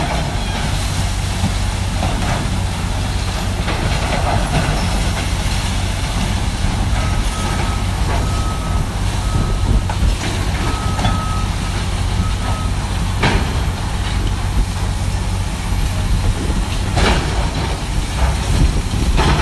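Heavy diesel demolition machinery running steadily, with a back-up alarm beeping repeatedly for several seconds in the middle and a few sharp knocks of debris being struck later on.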